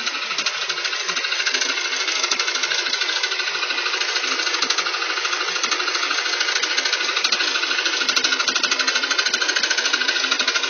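Freshly installed engine in a Mitsubishi Triton pickup running with a fast, even, rhythmic clatter.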